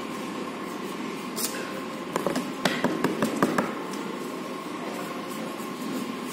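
A thermal paper roll being handled and rewound by hand. About two seconds in comes a quick run of sharp clicks and crackles lasting about a second and a half, over a steady faint hum.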